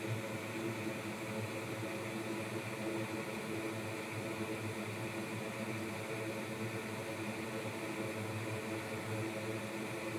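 Steady machine whir and hum, several even tones over a noisy hiss, with no change or break.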